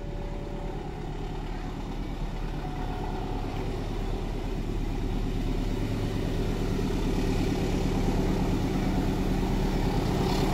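Diesel locomotive hauling a container freight train, its engine drone growing steadily louder as it approaches.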